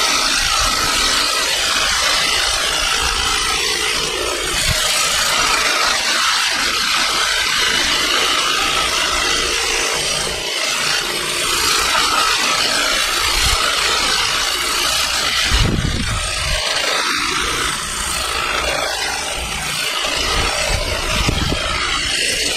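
Cordless Stihl hedge trimmer running steadily, its reciprocating blades cutting through the top of a conifer hedge.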